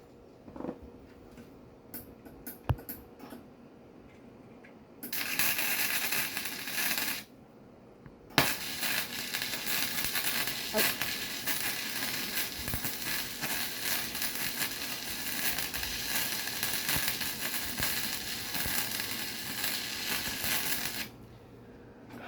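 Harbor Freight wire-feed welder arc crackling as a bead is laid inside a nut to weld it onto a rusted, broken exhaust stud. There is a short burst of about two seconds, a pause, then a steady run of about twelve seconds that stops shortly before the end, after a few light clicks at the start.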